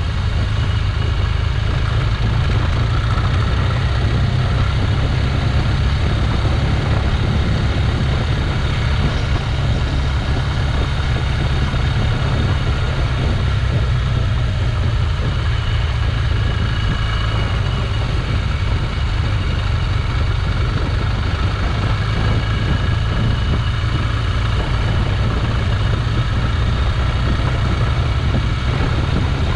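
Motorcycle on the move: a steady engine note under a loud, even low rumble of wind on the microphone.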